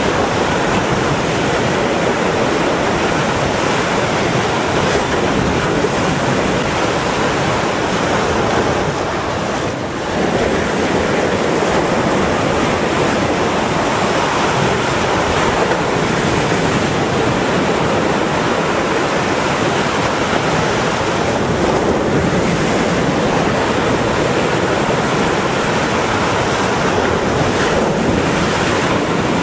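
Steady rush of sea waves and wind buffeting the microphone, with a brief dip about ten seconds in.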